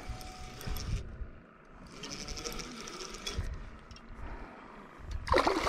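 Spinning reel being cranked, its gears whirring in a fast, even rattle as a hooked bass is reeled in. A short, louder sound comes near the end.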